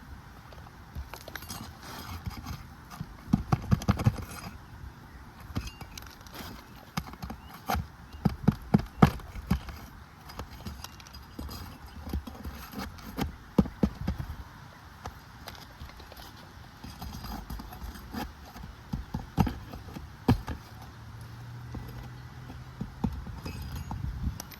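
Nails being pried out of roof shingles: irregular sharp knocks and taps of a metal tool on the roof, coming in clusters every few seconds.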